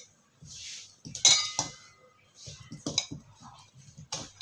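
Stainless steel tumbler clinking and scraping against a stainless steel bowl as sugar is scooped and measured: a few sharp clinks, one followed by a short metallic ring.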